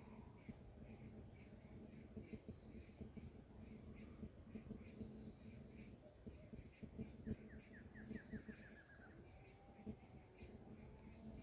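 Faint forest ambience: an insect keeps up a steady, evenly pulsing high chirp. About seven seconds in, a bird gives a short falling series of notes.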